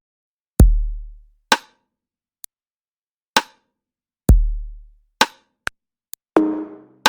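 Background music: a sparse electronic drum-machine beat with two deep booming kicks that fade slowly, sharp snare-like hits and light ticks in the gaps, and a short chord coming in near the end.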